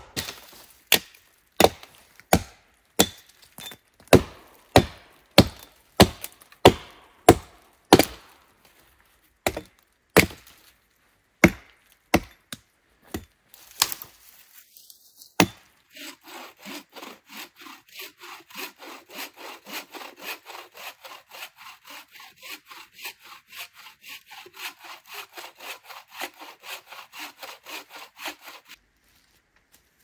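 Axe blows chopping into a fallen tree trunk, sharp knocks about one a second that thin out and stop about halfway. Then a hand saw cutting through the log in quick, even back-and-forth strokes, stopping shortly before the end.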